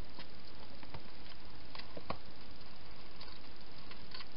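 Scattered soft clicks and crackles from a wild hedgehog moving and feeding at the dishes inside a clear plastic feeding box, over a steady hiss.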